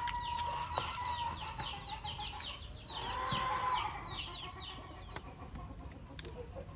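Chickens calling: a quick run of short, high, falling peeps several times a second, with a longer, steadier, lower call at the start and again a little past the middle. The calls thin out over the last couple of seconds, and there are a few light clicks.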